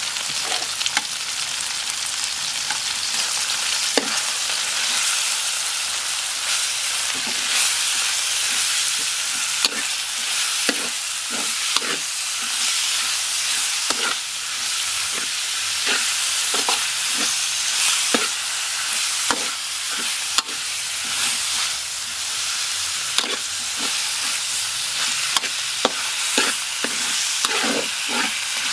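Minced meat sizzling in hot oil in a wok. A metal spatula scrapes and clacks against the wok at irregular intervals as the meat is stirred and broken up.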